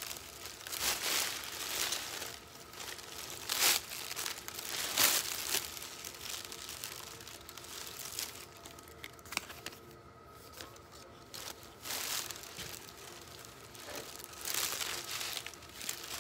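Rustling and crinkling as a Dior knit sweater is handled and turned over close to the microphone, in irregular bursts of handling noise with quieter stretches between.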